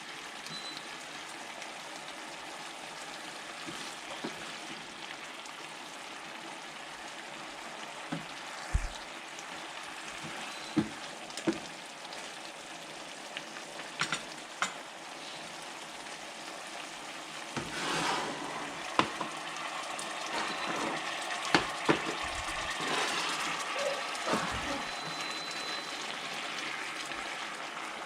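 Squid adobo sizzling steadily in a pan, with scattered sharp clicks of a utensil against the pan as it is stirred. The stirring gets busier and a little louder about two-thirds of the way through.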